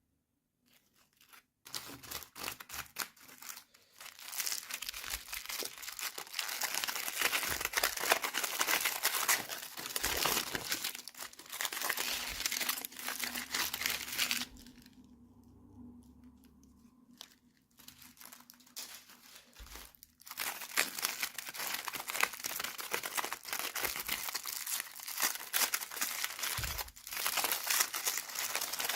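Toy packaging being crinkled and torn open by hand: dense crackling that starts about a second and a half in, eases off for several seconds in the middle, then picks up again.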